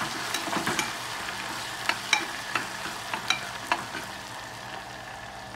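Chopped tomato frying in hot oil in a small nonstick pressure cooker with a steady sizzle, while a steel ladle stirs it, clinking against the pot several times.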